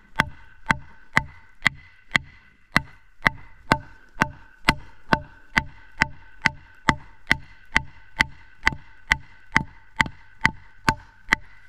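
Batoning: a wooden board beating the back of a hatchet head driven into a piece of landscaping timber to split it. It is a steady run of sharp knocks, about two a second, with a metallic ringing note hanging between them.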